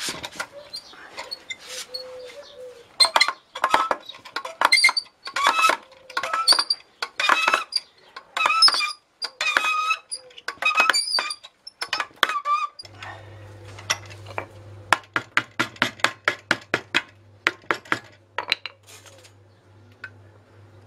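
Metal lever tool squeaking and clinking in separate strokes about a second apart as it is worked. Then comes a quicker run of short clicks, about four a second, with a low steady hum starting in the background.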